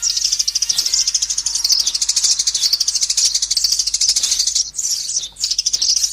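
Sparrow chirping in a rapid, continuous chatter of high notes, with short breaks about two thirds of the way through.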